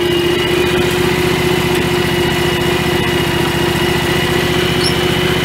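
John Deere X738 garden tractor engine idling steadily.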